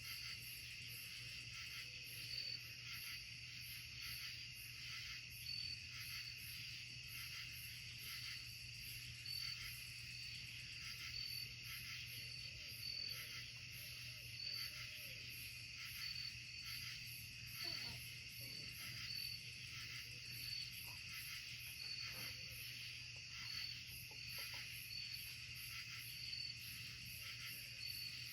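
Steady night-time chorus of woodland insects, crickets and katydids, with regular pulsing chirps about once a second over a continuous high trill.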